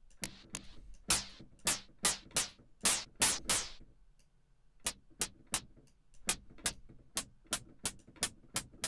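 Synthesized hi-hat from Logic Pro X's ES P synth, playing repeated bright ticks. In the first half some hits ring out longer while the envelope's decay is adjusted; after a short gap about four seconds in, short, crisp ticks come at about four a second.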